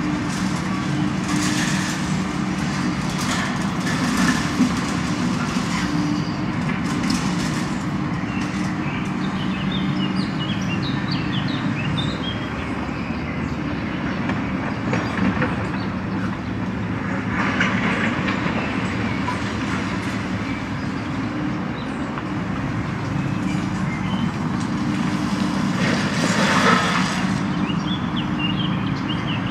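Takeuchi TB2150R compact excavator working: its diesel engine and hydraulics run with a steady drone, with several rough crunching and scraping bursts as the attachment works broken concrete, the loudest near the end.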